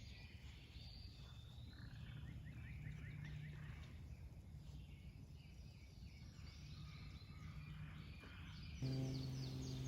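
Faint outdoor ambience with distant birds chirping, including a quick series of short notes about two seconds in. A steady low hum starts near the end.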